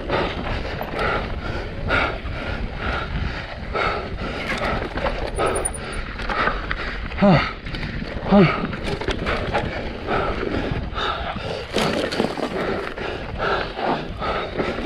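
Mountain bike running fast down a rough dirt trail: steady tyre, rattle and wind noise on the camera's mic, with the rider breathing hard in a regular rhythm. Two short grunts, falling in pitch, about seven and eight seconds in, are the loudest sounds.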